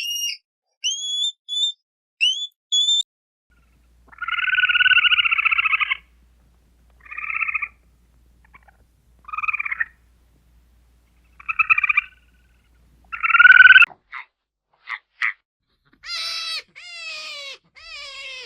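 A series of animal calls over silence: three short rising chirps, then five buzzy pulsed calls of varying length, the loudest just before the fourteen-second mark, followed by a few sharp clicks and a quick run of falling whistled sweeps near the end.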